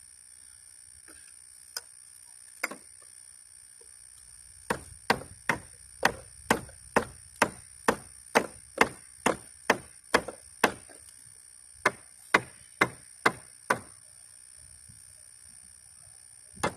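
Hammer blows on the wooden boards of a bench swing being taken apart: a steady run of sharp knocks about two a second, a short pause, then four more and one last knock near the end. A couple of lighter knocks come first.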